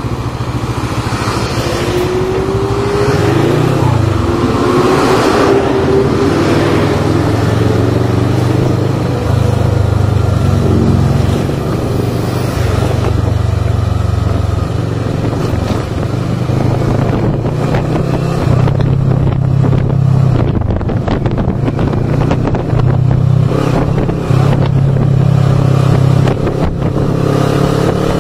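Motorcycle under way on the road, its engine running under a heavy rush and buffeting of wind on the microphone, with the engine note climbing over the first few seconds.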